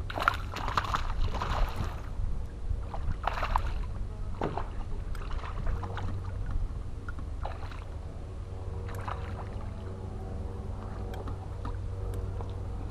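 Hooked bass splashing at the water's surface beside a bass boat as it is played and landed, in several short bursts over the first nine seconds or so, then calmer, over a steady low rumble.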